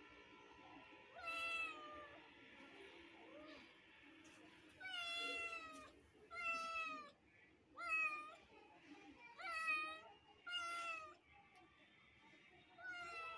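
A kitten meowing repeatedly: about seven high-pitched meows, each under a second long. After a pause of about three seconds following the first, the meows come every second or so.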